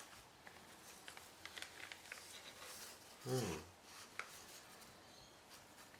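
Light rustling and small clicks of a watch's gift packaging being handled and opened. About three seconds in there is a brief low vocal sound that falls in pitch.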